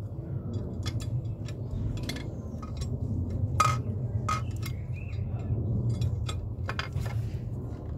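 Irregular light metallic clicks and clinks from an Audi 2.0 TFSI's timing chain and camshaft sprockets being worked by hand, as the chain is fitted to line up the cam timing marks; one louder clink near the middle, over a steady low hum.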